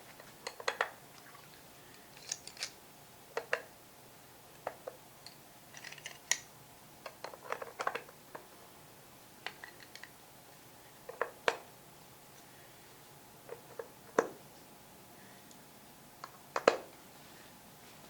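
Irregular sharp clicks and light knocks of hard objects being handled, some coming in quick pairs or small clusters, about twenty in all, over a faint steady hum.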